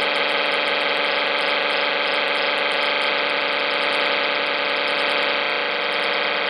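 Harsh noise music: a loud, dense, unbroken wall of distorted droning tones that shifts a little about five and a half seconds in.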